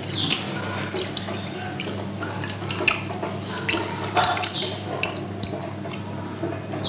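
Water poured from a glass over fingers, splashing and trickling into a small steel bowl on a steel plate, with scattered sharp clicks. A steady low hum runs underneath.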